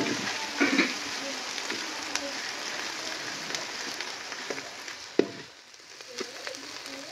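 Ground green chilli, coconut and coriander masala sizzling in hot oil in a metal pot, with a spoon scraping and clinking against the pot as it is stirred; a sharp knock about five seconds in.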